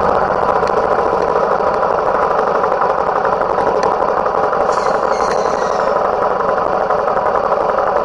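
Loud, steady engine and road noise of a moving vehicle.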